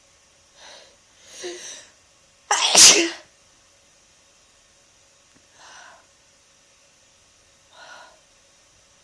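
A person with a bad head cold sneezing once, loudly and violently, about two and a half seconds in, after two short in-breaths build up to it; two quieter breaths follow.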